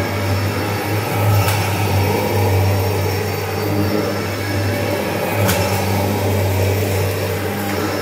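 A 1991 Kirby Generation 3 upright vacuum running steadily as it is pushed back and forth over carpet: a strong, even motor hum with a high whine above it. Two faint clicks come through, one about a second and a half in and one about five and a half seconds in.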